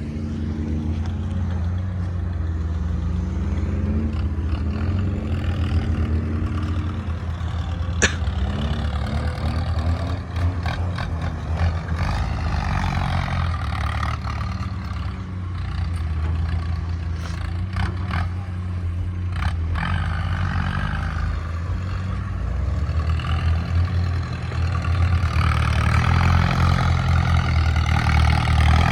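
Excavator's diesel engine working steadily, with scattered metallic knocks and clanks, a cluster around ten seconds in and again near twenty. The engine grows louder near the end.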